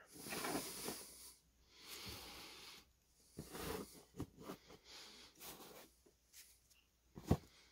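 Stacks of baseball cards being slid and squared on a tabletop by hand: soft scraping and rustling, with a sharper tap near the end.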